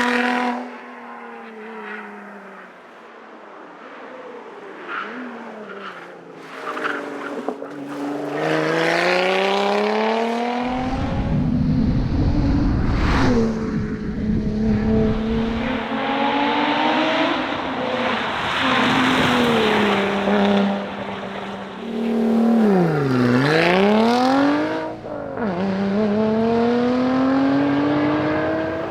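Lotus Exige Sport 410's supercharged V6 driven hard, its pitch climbing again and again through the gears with short lifts between. Early on it runs quieter and lower before pulling hard from about eight seconds in. A deep rumble sits under the engine for a few seconds near the middle, and about two-thirds of the way through the revs drop sharply, then climb again.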